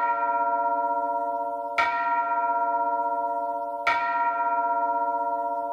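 A bell chime struck about every two seconds, twice in this stretch, each strike ringing on with a steady, slightly wavering tone until the next.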